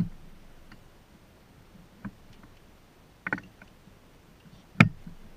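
Metal parts of a Barient #10 sailboat winch clicking and knocking together as it is reassembled by hand: a few sharp knocks, a quick double knock past the middle, and the loudest one near the end.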